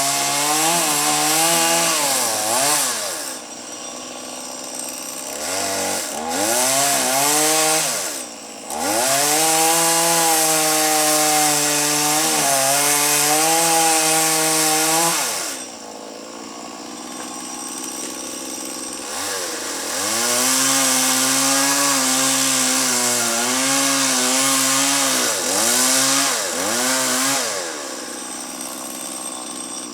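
Chainsaw cutting into a coconut palm trunk. It revs up and holds high speed for several seconds at a time, the pitch sagging and wavering under load, then drops back to a lower idle between cuts.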